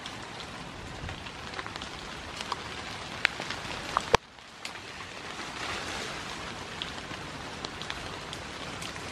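Steady rain hissing, with scattered sharp drop ticks and one louder tap about four seconds in.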